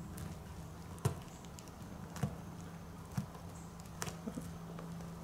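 Scattered small clicks and taps, four or five in all, from a knife and gloved hands skinning the base of a turkey tail fan on a plastic sheet, with a low steady hum behind.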